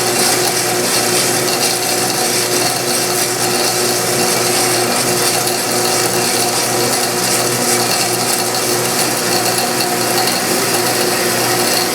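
Grizzly metal-cutting bandsaw running at its top speed of 282 surface feet per minute, its blade steadily cutting through aluminum stock.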